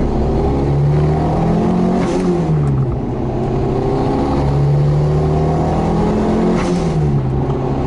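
Turbocharged 1200 engine of a modified Fiat 600 pulling hard under acceleration, heard from on board. Its pitch climbs, drops about two seconds in, holds steady, and drops again near the end.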